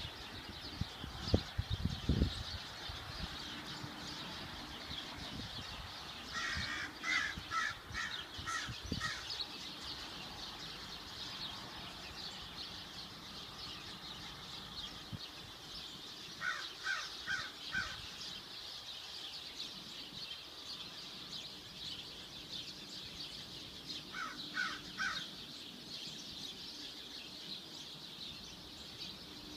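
A bird calls in runs of short repeated notes, three runs in all: about seven notes some six seconds in, four notes near the middle and three notes later on, over a steady hiss. A few low thumps come near the start.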